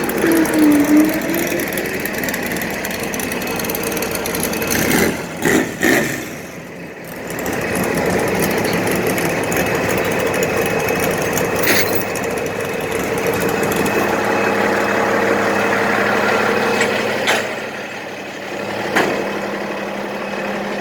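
An engine idling steadily, with a few sharp knocks or clicks along the way.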